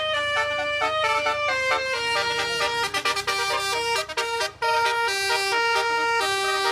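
Background music: a melody of held, horn-like notes stepping up and down in pitch.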